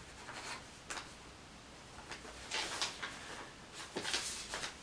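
Parker IM rollerball pen scratching across a paper ticket as a signature is written, in short irregular strokes with brief pauses between them.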